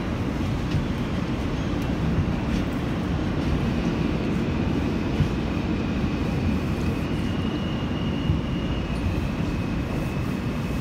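Inside an Alstom-built R160A subway car: the steady rumble of the train's wheels and running gear as it runs along a station platform, with a faint high whine coming in about four seconds in.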